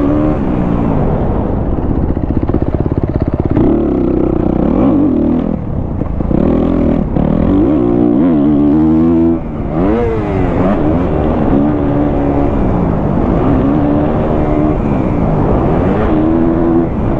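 2023 Kawasaki KX250F's single-cylinder four-stroke engine, fitted with a Pro Circuit exhaust, running hard on a motocross track. Its pitch repeatedly climbs under throttle, then drops at shifts and when the throttle is backed off, with a brief drop in level about nine seconds in.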